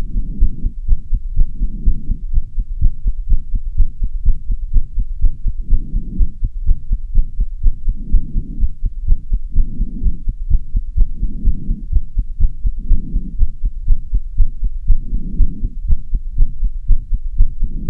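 A fast human heartbeat: quick, even thumps after half an hour of hard stair running. Slower swells of heavy breathing come and go about every second and a half to two seconds.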